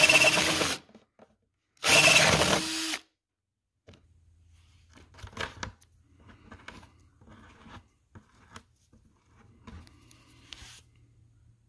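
Power drill with a 1-inch paddle bit boring through the plastic wall of a bucket. It runs until about a second in, stops, then runs once more for about a second and cuts off. Faint scattered clicks and rustles follow.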